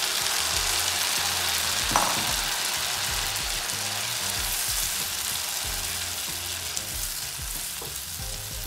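Grated tomato sizzling in hot butter and oil in a frying pan with green chillies, stirred with a spatula. There is a sharp click about two seconds in, and the sizzle gradually gets quieter.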